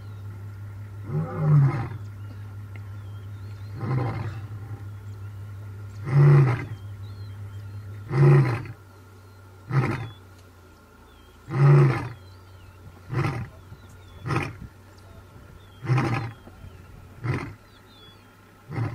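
Male African lion roaring in a bout of about eleven deep calls, a second or two apart. The first calls are longer and louder; the later ones are shorter, quieter grunts coming a little closer together.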